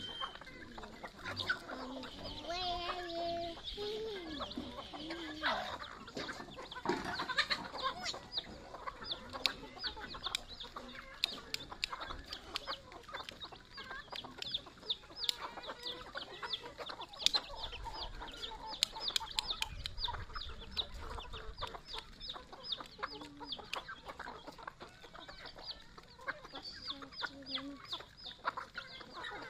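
A flock of native chickens feeding. Hens cluck, with lower calls in the first few seconds, while chicks keep up a stream of rapid high peeps, and sharp ticks of beaks pecking grain off concrete are heard among them.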